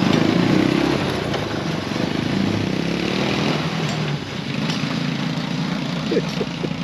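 Massimo mini Jeep's small gasoline engine running as the vehicle drives off, the engine sound loudest at first and fading as it pulls away.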